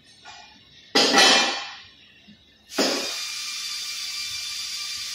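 A loud sudden sound about a second in that dies away over about a second, then background music with held tones starts just before the middle and carries on.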